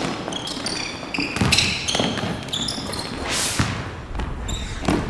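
Basketball bouncing on a hardwood gym floor, with sneakers squeaking as players cut and move, a scatter of short knocks and squeaks throughout.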